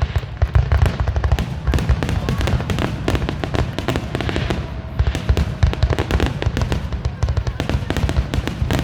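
Fireworks finale barrage: a rapid, continuous stream of overlapping booms and crackling reports, many bursts a second, with heavy low thuds throughout.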